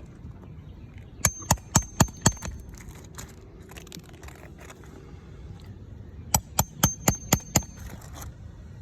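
Hammer blows during a roof shingle repair: two quick runs of about five and then six sharp strikes, about four a second, each with a high ringing note.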